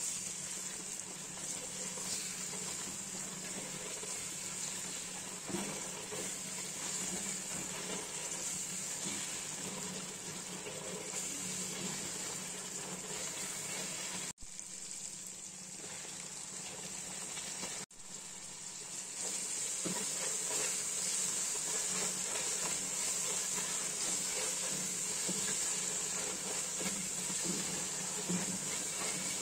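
Sliced onions and green chillies frying in hot oil in a pot: a steady sizzle, with faint scrapes of a plastic spatula as they are stirred. The sizzle cuts out for an instant twice in the middle and is louder in the second half.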